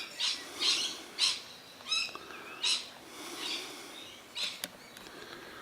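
Parrots at a feeding spot giving short, harsh screeching calls, about five in quick succession over the first three seconds, then softer chattering and a single sharp click near the end.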